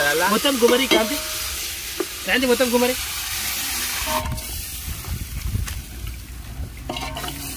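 Curry sizzling in an aluminium pot over a wood fire, stirred with a steel ladle that scrapes and clicks against the pot. The sizzle is strongest in the first few seconds.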